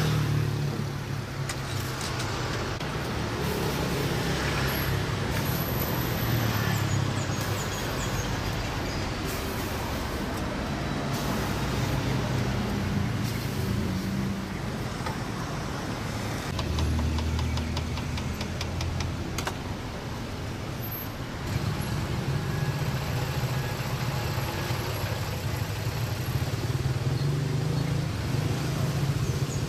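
Roadside street ambience: a steady rumble of traffic with vehicles passing, broken by a few light metal clinks.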